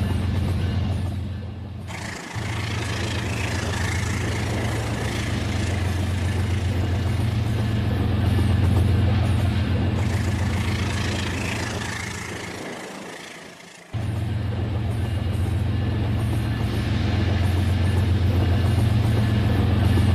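Electric toy train running on its track: a steady low motor hum with a fast clatter of wheels rolling over the rails. The sound fades down twice and jumps back suddenly, about two seconds in and again about fourteen seconds in.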